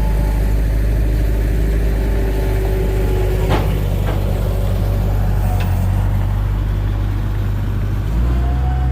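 Engine running steadily with a low drone, with two sharp clicks about three and a half and four seconds in and a change in the engine note shortly before the end.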